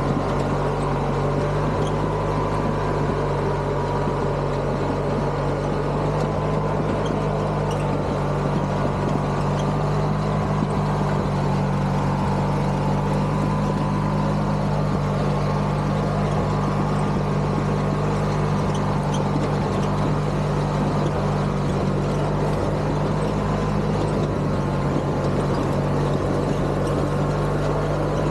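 Craftsman GT6000 garden tractor engine running steadily at an even speed, with no revving or stopping.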